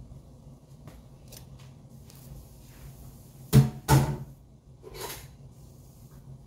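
Two sharp knocks about a third of a second apart, a little past halfway, then a softer knock about a second later, over a faint low steady hum.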